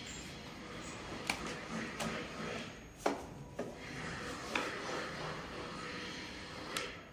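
Handling noise as an electric chopper scooter's handlebar is raised and set into place: about six scattered sharp knocks and clicks, the sharpest about three seconds in, over steady room noise.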